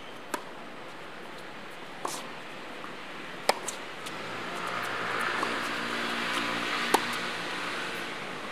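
Tennis balls struck by rackets in a rally, several sharp pops, the loudest about three and a half and seven seconds in. A steady hum swells in the background over the second half.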